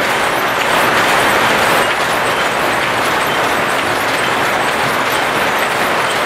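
Steady, dense clatter of several card-controlled straw-mat looms running together, a fast mesh of mechanical clacks with no break.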